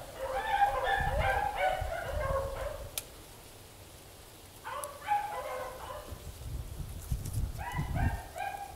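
A pack of beagles baying as they run a rabbit's scent trail, several dogs giving overlapping, drawn-out howling bays. The chorus breaks off about three seconds in, picks up again, pauses, and returns near the end.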